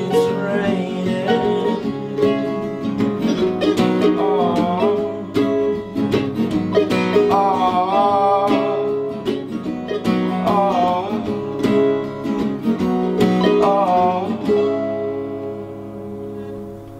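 Acoustic guitar and a plucked string instrument play a song's closing instrumental bars, with picked notes and some sliding, bent pitches. About fifteen seconds in, the playing stops on a final chord that rings and fades away.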